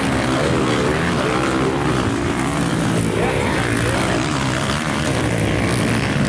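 Several motocross bikes' engines revving as riders take a jump, their pitch rising and falling in overlapping waves.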